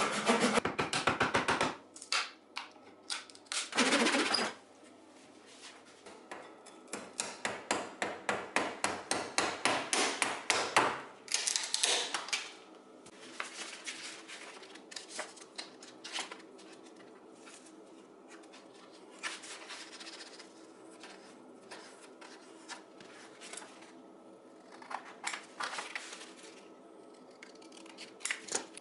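Fine-toothed hand saw trimming a wooden patch flush on a curved wooden chair frame, in bursts of quick back-and-forth strokes, the longest about four seconds. After that come quieter rustling and handling of sandpaper.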